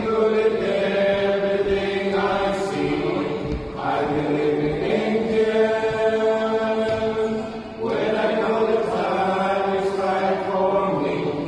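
A chorale rehearsing, singing long held notes in phrases of about four seconds, with brief breaks for breath about four and eight seconds in.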